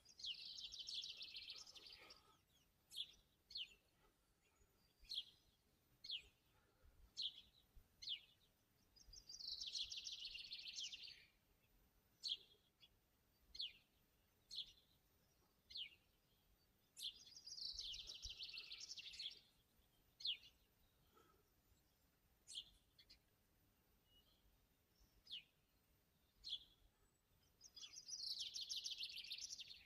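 A small songbird singing: a fast, high trill about two seconds long, repeated four times roughly every nine seconds, with single short chirps about once a second in between. Faint.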